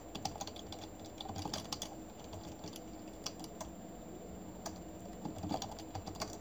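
Computer keyboard typing: faint, irregular keystrokes in short runs.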